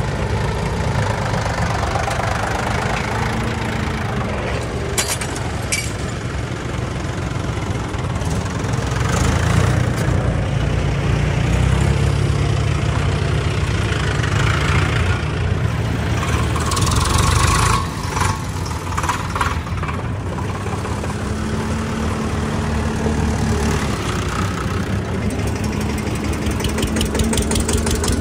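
Diesel tractor engines running, mostly at idle, with a steady low knocking chug. The engine sound grows louder for a stretch starting around nine seconds in and drops back suddenly just before eighteen seconds.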